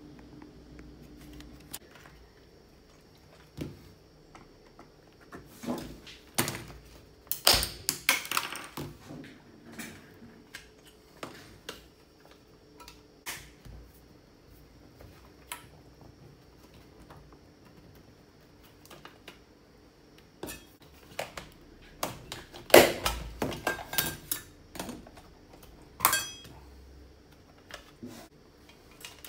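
Hard plastic parts of a Bosch CNHR22 hand mixer and a screwdriver being handled while the mixer's gearbox is pried apart: scattered clicks, knocks and clatters. The knocking is busiest about a quarter of the way in and again about three quarters through.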